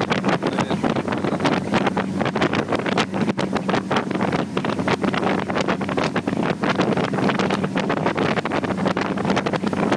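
Boat running under way: a steady engine drone under heavy, irregular wind buffeting on the microphone.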